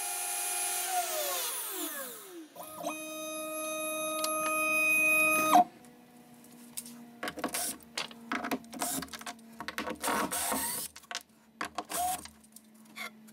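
DeWalt trim router on a Shapeoko CNC spinning down, its whine falling in pitch over about two seconds after the cut ends. A steady motor hum follows for about three seconds and stops abruptly, then a cordless drill driver runs in short bursts, backing out the screws of the hold-down clamps.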